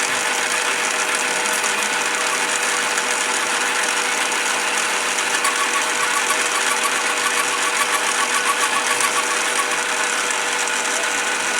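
BV20 mini lathe running steadily, its motor humming with a steady tone. A rapid rhythmic ticking joins in from about five seconds in until near the end.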